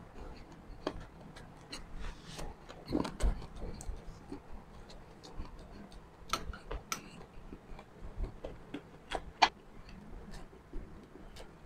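Close-miked mouth sounds of someone eating: scattered sharp wet clicks and smacks from chewing, a second or two apart.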